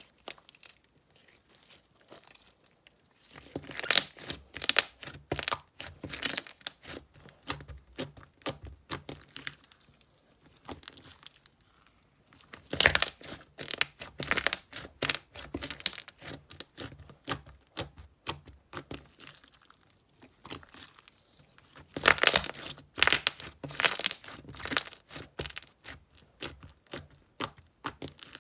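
Slime being played with by hand, giving dense crackling and popping, louder in three spells about four, thirteen and twenty-two seconds in.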